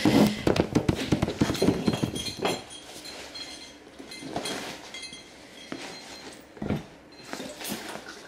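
Handling clatter: a quick run of knocks and clicks as the camera is moved and set down, then a few scattered thumps and rustles as a canvas tote bag is packed and shifted.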